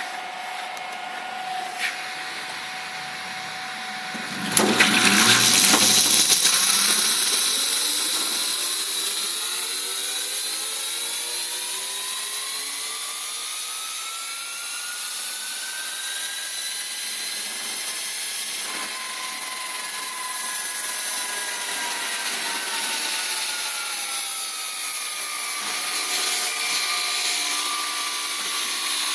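Electric vehicle's motor and controller whining during a test run. The whine starts abruptly and loud about four seconds in under hard acceleration, rises in pitch for a long stretch as speed builds, then falls again as the vehicle slows under regenerative braking.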